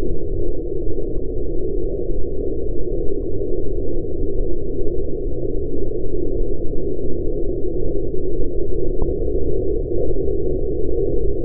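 Toyota 1GR-FE 4.0 L V6 engine idling steadily with its newly fitted serpentine drive belt running, heard heavily muffled with all the treble cut away.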